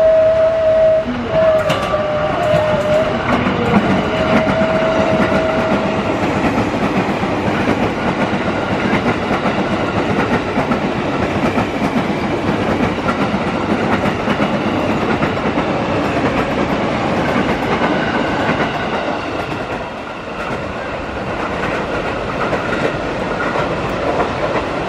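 JR 205 series electric commuter train sounding a long, steady horn with two short breaks, the driver's extended S35 horn signal, until about six seconds in. The train then runs past close by, its wheels clattering over the rail joints.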